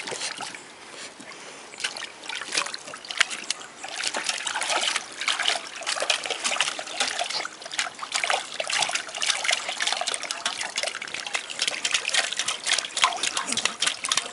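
A puppy splashing and pawing in a metal bowl of water, water sloshing and spattering in irregular bursts. The splashing is lighter for the first few seconds and busier from about four seconds in.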